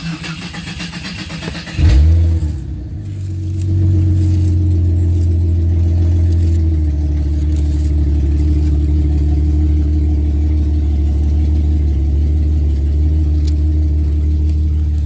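A car engine is cranked by its starter, catches about two seconds in with a brief flare, then settles into a steady idle.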